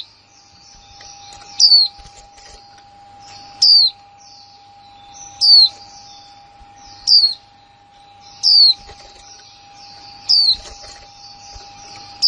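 Female white-eye (chim khuyên mái) calling: a sharp, high chirp that falls in pitch, repeated about every two seconds, with softer twittering between. This is the female call that bird-keepers play to stir male white-eyes into singing.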